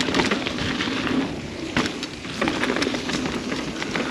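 Mountain bike rolling over a dirt trail: tyres crunching over the ground and the bike rattling and clattering, with a sharp knock about two seconds in, over a rumble of wind on the microphone.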